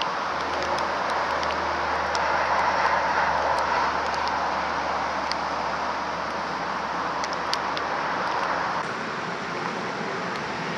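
1945 GMC DUKW amphibious truck's GMC 270 straight-six engine running as the truck drives slowly, with a low steady drone under a rushing mechanical noise. The drone drops away about nine seconds in.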